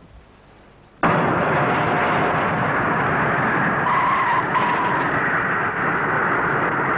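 Large four-engine jet airliner landing: a loud, steady rush of engine and runway noise that starts abruptly about a second in, with a couple of short squeals near the middle as the tyres touch down.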